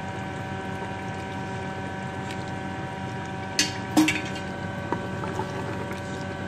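A wooden spoon stirring oil through cooked black chickpeas in a steel pot, clacking sharply against the pot twice about three and a half and four seconds in, over a steady hum with several held tones.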